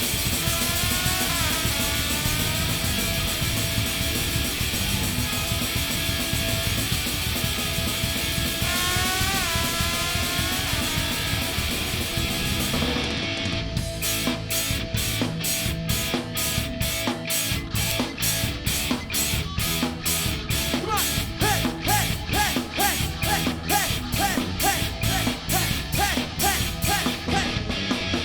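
Live rock band playing loud, distorted electric guitar with sliding notes over a dense wash of sound; about halfway through, a fast, even drum beat comes in under repeated guitar notes.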